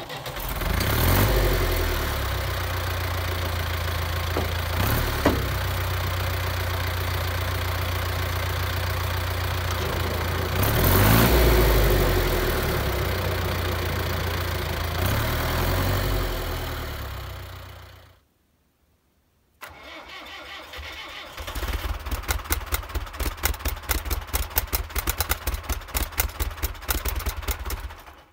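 1977 International Harvester 574 tractor's diesel engine running steadily with a snowblower hitched, speeding up briefly about halfway and then cutting off sharply. After a short silence the diesel sounds again with a fast, uneven pulsing that grows louder.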